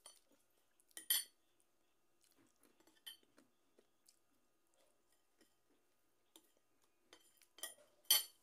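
A metal spoon clinking and scraping against a ceramic dinner plate in a few scattered sharp clicks, the loudest shortly before the end.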